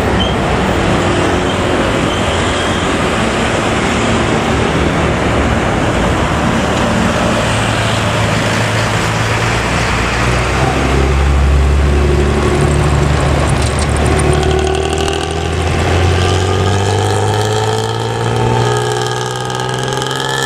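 Pantura intercity bus with a hollowed-out ('bobokan') exhaust running with a deep snoring growl over heavy traffic noise. About two-thirds of the way through the engine note strengthens and climbs steadily in pitch as the bus accelerates.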